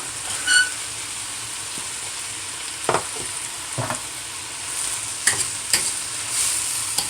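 Seasoning frying in hot oil in a pot, a steady sizzle, with a utensil knocking against the pot a few times and a short metallic ring about half a second in.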